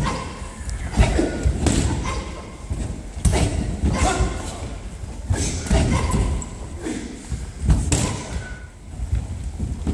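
Irregular thumps and stamps of several pairs of karateka's feet landing, stamping and pushing off on a wooden sports hall floor during free sparring, with the odd punch or kick landing on padded gloves, echoing in the hall.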